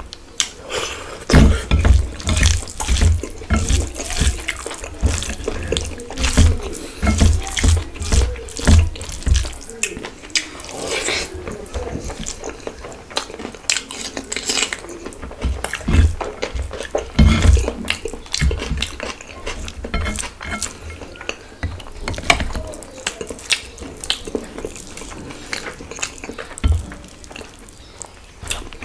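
Close-miked eating of khichuri by hand: wet chewing and lip smacking in runs of about two chews a second, with squishing and clicking as fingers mix the rice and curry on the plate.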